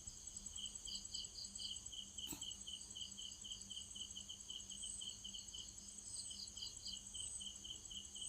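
Insects chirping in a steady, even pulse of about three to four chirps a second, quiet and high-pitched, with a faint steady hum beneath. A single short click sounds a little over two seconds in.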